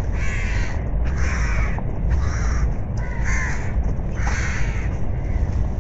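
A bird calling over and over, about once a second, each call about half a second long, over a steady low rumble.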